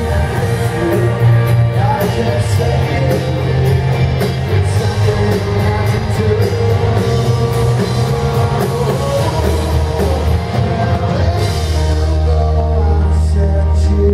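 A live rock band playing loud, with electric guitars over a steady bass line and drums with cymbal hits.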